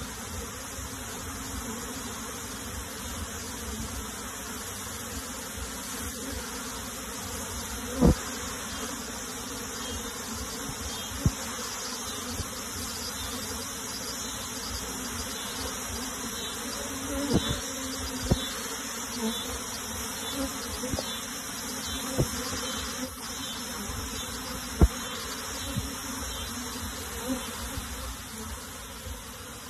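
A dense mass of honey bees buzzing steadily, with a handful of sharp knocks scattered through it. The loudest knocks come about eight seconds in and again late on.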